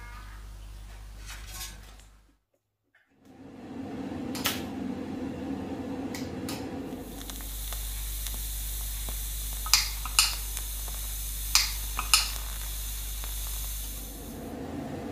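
TIG welding arc hissing steadily with a low electrical hum from about halfway in, as a crack in a scooter exhaust pipe is welded with filler rod. Several sharp clicks come near the middle of the weld.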